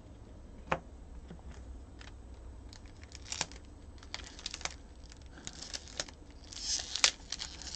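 Cellophane wrapper of a trading-card pack crinkling and tearing as it is handled and opened, in scattered crackles that grow busier in the second half, with a sharp snap about seven seconds in.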